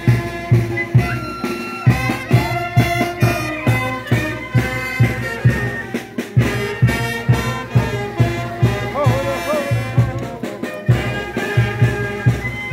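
Lively dance music: a melody over a steady drum beat, about two beats a second.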